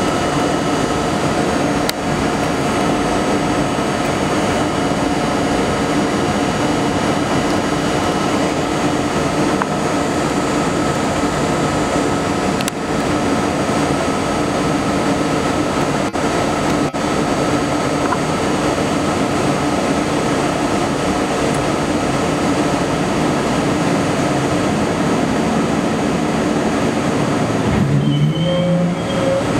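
Running noise inside an R32 subway car as it creeps slowly into a terminal station: a steady hum with several constant tones over it. Near the end a few short stepped tones come in.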